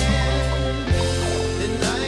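Background music: a song with a steady bass line whose notes change about once a second.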